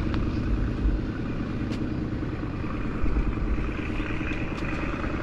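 Steady motor-vehicle noise, a constant engine hum with uneven low rumbling and a few faint clicks.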